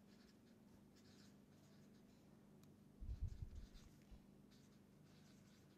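Faint scratching of a felt-tip marker writing on paper, with a soft low thump about three seconds in.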